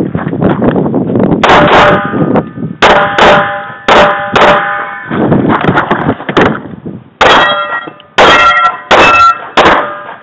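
Semi-automatic pistol shots fired in quick strings, with steel targets ringing in clear tones after hits. There are pauses of a second or two between strings as the shooter moves, and the last shot comes shortly before the end.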